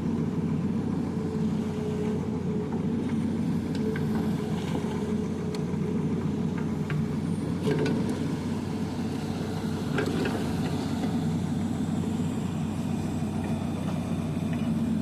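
Excavator's diesel engine running steadily, with a few short clicks and knocks over it, the loudest about eight and ten seconds in.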